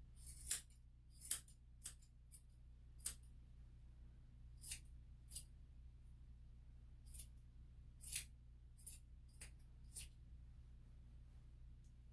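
Grooming scissors snipping a miniature poodle's curly coat: about a dozen short, crisp snips, spaced irregularly, sometimes two close together.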